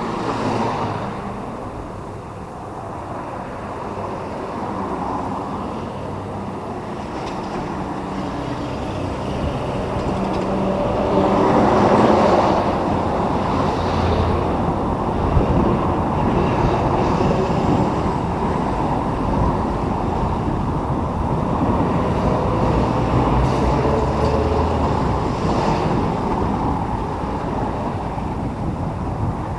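Road traffic going by: a continuous run of vehicle engine and tyre noise that swells as vehicles pass, loudest about twelve seconds in.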